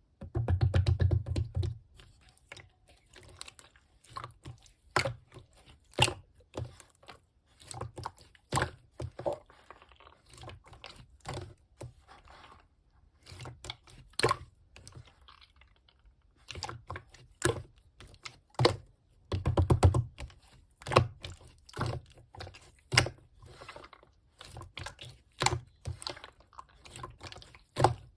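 Slime being squeezed and pressed by hand, giving many irregular sharp pops and clicks, busiest near the start and about two-thirds of the way through.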